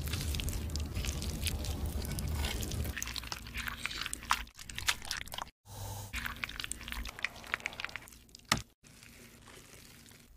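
Cooking sounds in short cuts. First, a stone hand mill grinds fresh mugwort leaves into wet paste: a low rumble with dense crackling for about four seconds. Then come shorter stretches of wet squishing and clicking as the green paste is mixed and handled, fainter near the end.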